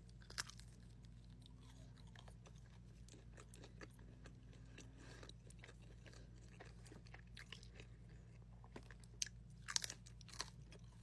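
Faint, close-up chewing of McDonald's McPizza Bites, with small irregular crunches and a few louder bites near the end.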